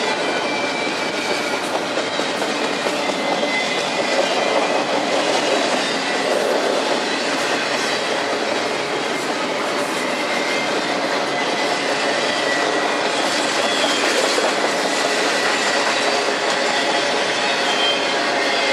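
Double-stack intermodal well cars rolling past on steel wheels: a steady clatter and rumble of wheels on rail, with faint high-pitched wheel squeal.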